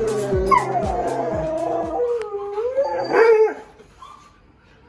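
Siberian husky howling in drawn-out, wavering, gliding cries, over background music with a steady beat. The music stops about two seconds in; the howl rises to its loudest about three seconds in and breaks off shortly after.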